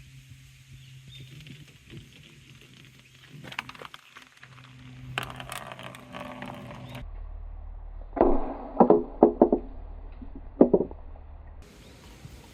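Large balls rolling through a plastic bellows hose and knocking against playground equipment, with a cluster of sharp, loud knocks in the second half and fainter clicks earlier.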